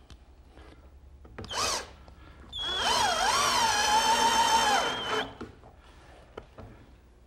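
Cordless drill boring a hole into pine: a short whir of the motor, then a steady run of about two and a half seconds whose pitch dips briefly just after it starts.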